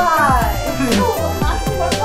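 Music with a steady bass beat and regular drum hits, with gliding melodic lines over it.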